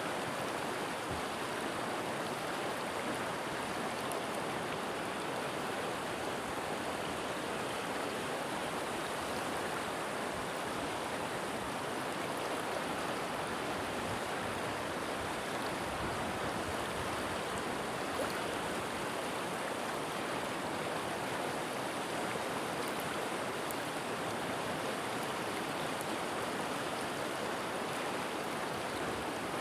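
River water flowing over rocks, a steady even rushing.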